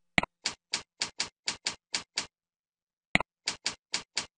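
A mouse click, then a run of about nine evenly spaced keyboard keystrokes, about four a second. After a pause there is another mouse click and a second run of keystrokes: a password being typed into one field and then typed again in the confirm field.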